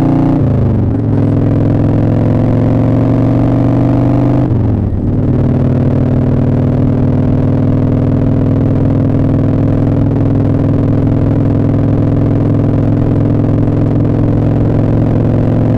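Motorcycle engine under way, heard muffled from inside the rider's leather jacket: it shifts up twice, the engine note dropping sharply about half a second in and again about four and a half seconds in, then holds a steady cruising note.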